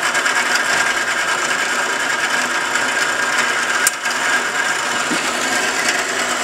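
Horizontal metal-cutting band saw running steadily with its coolant pump on: an even machine noise with a steady high tone in it, and one short click about four seconds in.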